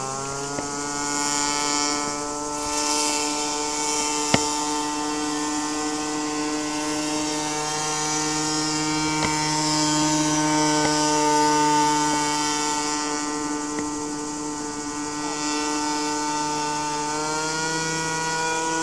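Radio-controlled airboat's small engine and air propeller running at steady speed with a buzzing, pitched note. The pitch dips slightly just after the start and rises again near the end. A single sharp click comes about four seconds in.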